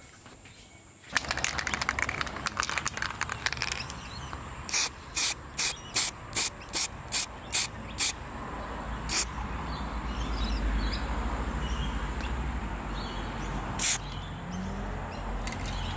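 Aerosol spray-paint can: a rapid rattle of clicks, then a string of about eight short hissing sprays in quick succession, and two more single sprays later on.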